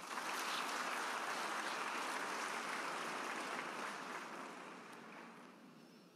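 Large audience applauding, a dense even clapping that swells at once, holds for about four seconds, then dies away.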